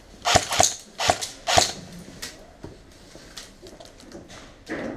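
Airsoft guns shooting: a quick string of about five sharp cracks in the first two seconds, then a few fainter ones.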